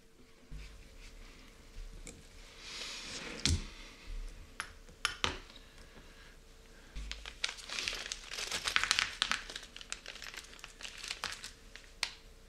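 Small plastic parts bag crinkling as it is handled and emptied, in two spells, with sharp clicks of small metal parts (link arms and screws) tapping against each other and the mat.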